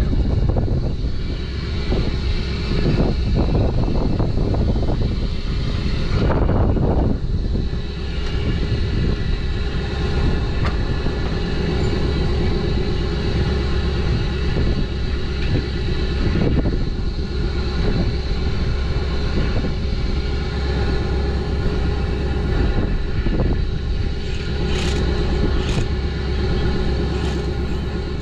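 An engine running steadily at a constant speed, with a few knocks over it.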